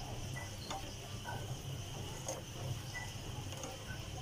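Silicone spatula stirring and scraping a thick milk and milk-powder mixture in a nonstick pan on the stove, with faint scattered ticks and pops, over a steady high-pitched hum.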